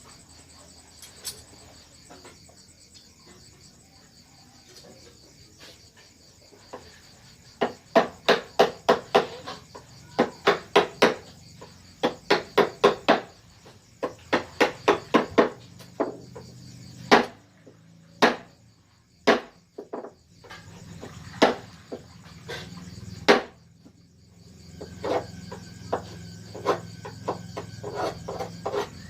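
Quick runs of sharp hammer taps, about five a second, then a few single heavier knocks and a run of lighter taps near the end, over steady cricket chirring.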